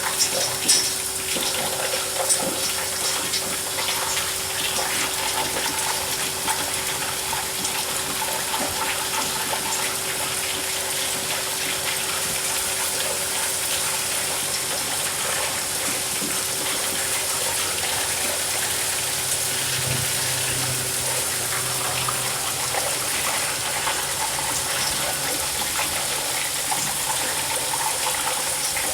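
Tube ice machine running: a steady rush of flowing water over a constant machine hum, with scattered faint clicks.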